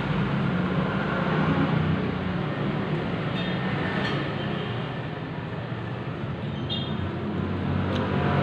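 Steady rumble of road traffic with a low hum, easing a little midway and swelling again near the end, with a few faint clinks of spoons against plates.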